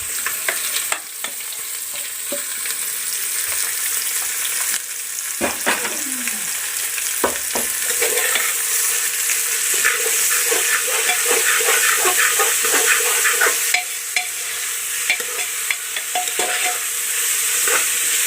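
Sliced onion sizzling as it fries in ghee in a pan, with a spatula stirring and scraping against the pan in frequent short knocks, busier in the second half.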